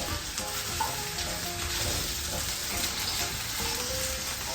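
Small-cut potatoes frying in oil in a pan, a steady sizzle.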